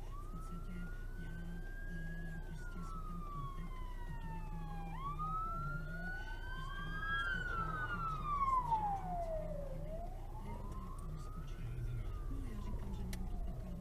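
Ambulance siren wailing in slow rising and falling sweeps, growing loudest about eight seconds in as it goes by. It is heard from inside a stopped car over the low hum of its idling engine.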